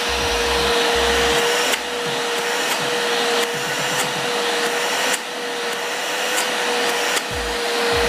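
A Multipro 3-in-1 wet/dry vacuum cleaner's 650-watt motor running in suction mode, a steady whine over the rush of air through the hose. The air noise steps louder and quieter abruptly every second or two as the hand passes over the open hose end.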